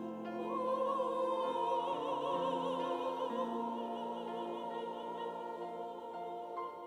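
Church choir singing a slow, sustained anthem phrase with vibrato over piano accompaniment. The voices come in about half a second in over held piano chords and give way to the piano alone near the end.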